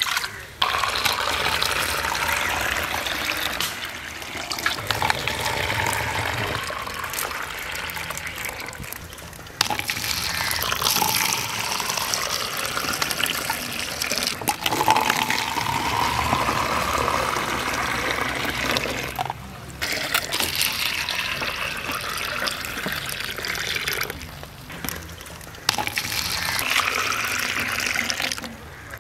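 Fresh grape juice being poured into a vessel, a steady splashing stream heard in several separate pours. In one pour the pitch slowly rises as the container fills.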